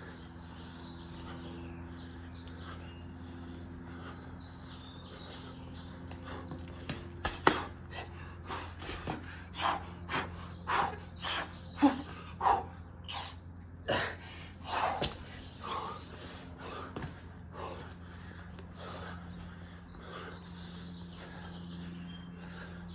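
A man breathing hard from burpees, a run of short loud gasps and exhalations about once a second through the middle, over a steady low hum.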